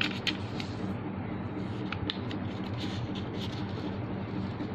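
Sheet of origami paper being handled and folded, a few brief crinkles and taps, over a steady low hum.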